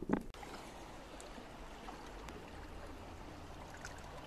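Steady trickle and wash of seawater among tide-pool rocks on a rocky shore as the tide ebbs, with a short knock right at the start.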